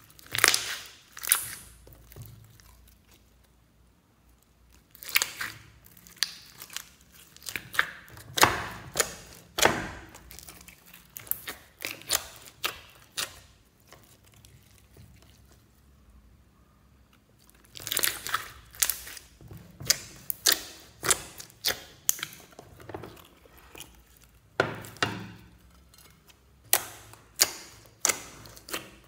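Hands squishing and kneading a big mass of slime mixed with sprinkles, beads and glitter in a glass bowl: sticky squelches and crackling pops in irregular bursts, with two quiet pauses of a few seconds.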